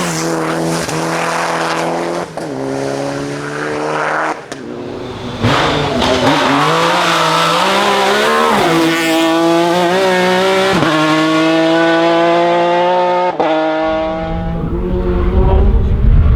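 Hill climb race car engine at full throttle, its pitch climbing and then dropping at each of several quick gear changes as it accelerates up the course. A low rumble builds near the end.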